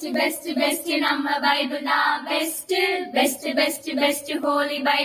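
Several female voices singing together with no instruments, a short jingle-like song.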